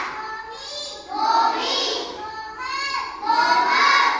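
A class of young children chanting Khmer consonants aloud in unison, a sing-song recitation that rises in loud swells about a second in and again near the end.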